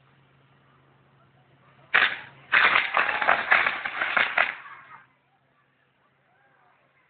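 Fireworks going off: a single sharp bang about two seconds in, then a rapid string of cracks and bangs for about two seconds that dies away.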